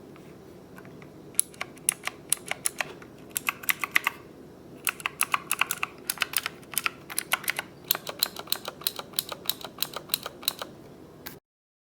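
Rosewill K81 Neon mechanical keyboard with Kailh Blue switches being typed on, sharp keystroke clicks in quick irregular bursts with a short pause about four seconds in. Picked up by a camera's built-in microphone, with a faint steady hum beneath.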